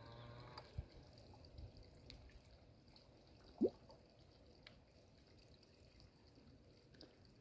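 A single small water plop, a quick rising 'bloop', about three and a half seconds in, as a fish sucks at floating bread on the pond surface; otherwise faint, with a couple of soft low thumps early on.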